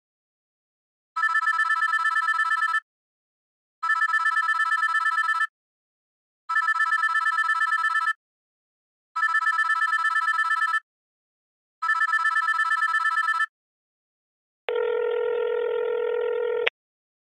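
Telephone ringing in five even, warbling bursts of about a second and a half each, with a short gap between them. After that comes a different steady telephone tone, like a dial tone, held for about two seconds and ending with a click.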